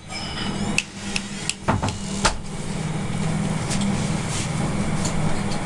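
A few short taps or knocks in the first two seconds or so, then a steady low hum of background noise.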